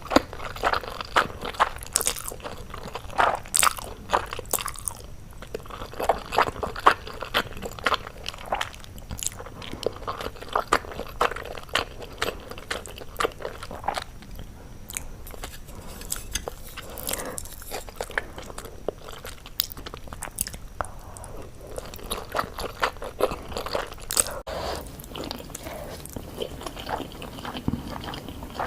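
Close-miked eating of crunchy food: repeated bites and chewing, with many sharp, irregular crunches coming in clusters.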